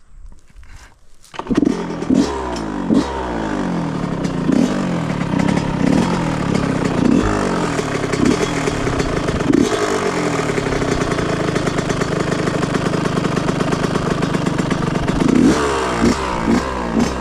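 2005 Yamaha YZ125's 125cc two-stroke single-cylinder engine starting about a second and a half in, then running with repeated throttle blips that rise and fall in pitch.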